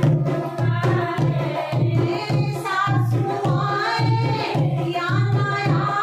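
Women singing a sohar folk song together to a dholak, its bass head struck in a steady beat about twice a second.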